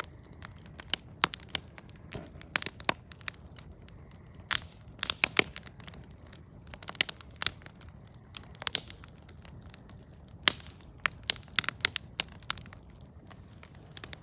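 Wood campfire crackling, with irregular sharp pops and snaps coming in clusters.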